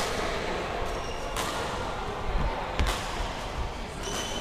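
Badminton rackets striking a shuttlecock: sharp cracks about every one and a half seconds, ringing in a large hall. A few dull thumps just before the third crack.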